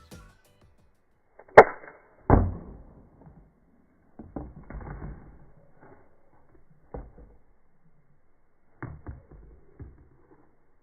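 A sharp snap about one and a half seconds in, a heavy thump just after it, then a few softer knocks and clatters spread out with quiet between.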